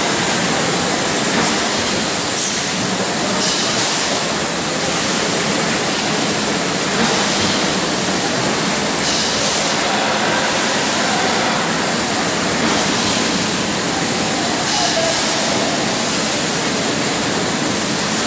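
Water bottling line running: a steady rushing machine noise from conveyors and bottling machinery moving filled plastic water bottles.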